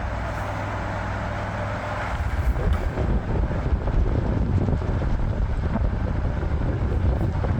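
1973 National F-30AAD table fan running at full speed with a steady, quiet motor hum. From about two seconds in, a gusty low rumble of the fan's airflow buffeting the microphone joins it.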